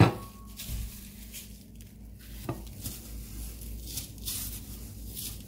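Kitchen utensils and plates being handled while breaded fish fillets are moved onto a glass plate: a sharp clink right at the start, a single knock about two and a half seconds in, then a few short scraping strokes near the end.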